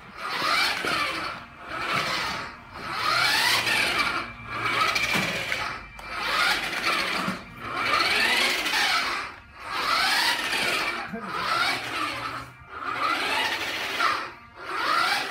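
Small electric motor of a toy remote-control buggy whining in about ten short bursts, roughly one every second and a half, each rising and then falling in pitch as the car is driven in spurts.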